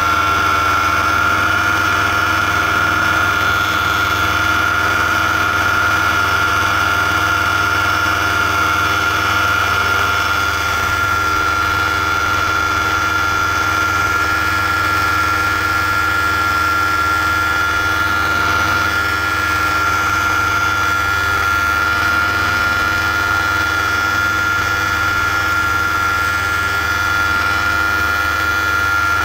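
Paramotor engine and propeller running at a steady throttle in flight, with an even, unchanging drone and a strong high whine.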